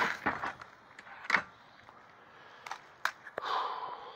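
Kick-starter of a 1977 Suzuki PE250 two-stroke dirt bike being kicked: two strokes of the engine turning over without firing, the first at the start and the second about a second later. A few lighter clicks and rattles follow near the end.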